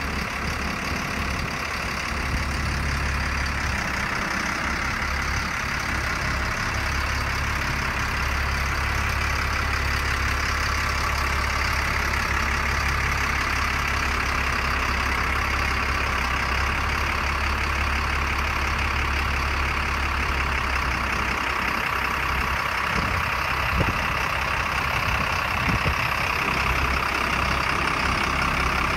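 1992 GMC TopKick bucket truck's engine running steadily at idle, powering the hydraulic aerial boom as it is raised. A low drone with a steady hiss over it.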